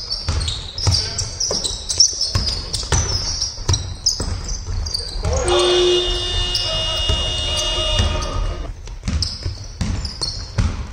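Indoor basketball game: a ball dribbled and bouncing on a hardwood sports-hall floor, with players' sneakers squeaking. A sustained high-pitched tone comes in about five seconds in and lasts about three seconds.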